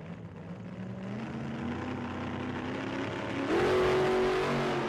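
Car engine accelerating, its pitch climbing steadily. About three and a half seconds in it turns louder with a quick rise in pitch, then holds.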